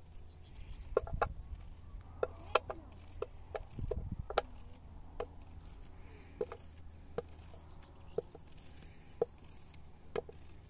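A series of sharp, irregular knocks, roughly one every half second to a second, each with a short ringing tone, over a faint steady low hum.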